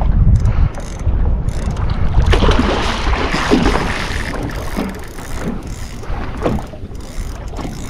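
Wind buffeting the microphone on a small boat at sea, a heavy unsteady rumble, with a rush of water noise swelling about two seconds in and fading a couple of seconds later.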